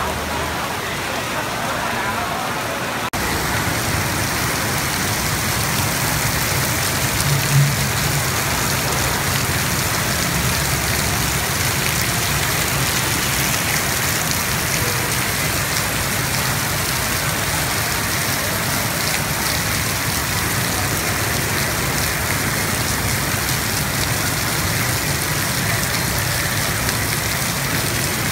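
Heavy rain pouring onto a wet street and pavement: a dense, steady hiss that jumps louder and closer about three seconds in. Motorbike traffic runs through the water beneath it as a low rumble.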